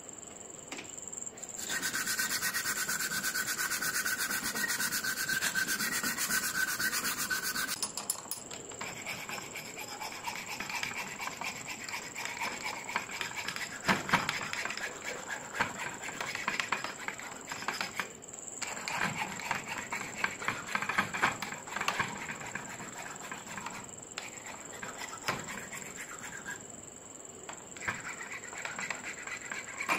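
Hand file rasping a wooden tool handle clamped in a bench vise, in repeated uneven scraping strokes. For the first several seconds a louder, steadier scratchy noise with a held high tone runs, then stops.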